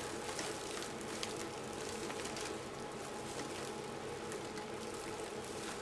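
Faint rustling and crinkling as pipe cleaners are twisted onto a wire wreath frame among stiff plastic deco mesh, with scattered small ticks over a steady low room hum.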